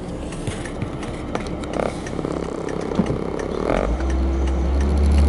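Car interior: the engine and road noise, with scattered light knocks from a camera being handled and set on the dashboard. About four seconds in, a steady low engine drone comes up as the car pulls away.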